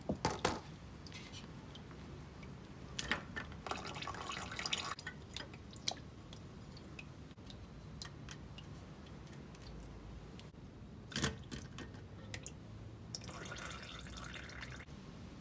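Leftover engine oil dripping from the sump of an air-cooled VW Beetle as the oil strainer cover plate is unbolted and taken off, with a few sharp metal clicks and stretches of rattling as the nuts and plate are handled.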